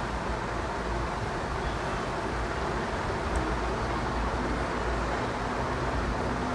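Steady outdoor background noise: a low rumble under an even hiss, with a faint steady hum coming in about four seconds in.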